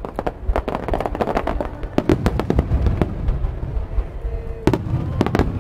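Starmine fireworks display: rapid volleys of aerial shells bursting, a dense run of sharp bangs and crackles, several a second, over a continuous low rumble.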